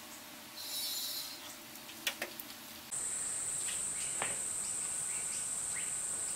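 A few light clicks, then about three seconds in a steady, high-pitched whine sets in and holds at one pitch.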